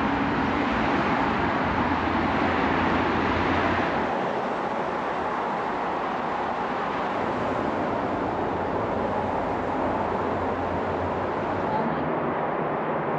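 Steady road traffic noise from cars on a nearby road, with a heavier low rumble for the first few seconds as a vehicle goes by.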